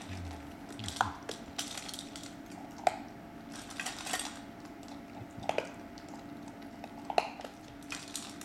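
Weimaraner puppy eating dry kibble from a stainless-steel bowl: several sharp, ringing clinks against the metal bowl, with quieter crunching in between.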